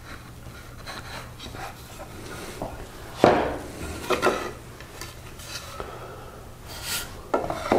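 Scattered knocks and scrapes of a chisel plane and a wooden box being handled on a bench, the sharpest knock about three seconds in, over a faint steady hum.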